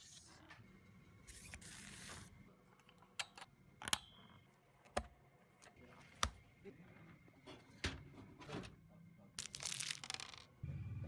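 PC parts and their packaging being handled: scattered sharp clicks and knocks, with two longer bursts of rustling or tearing, one near the start and one near the end.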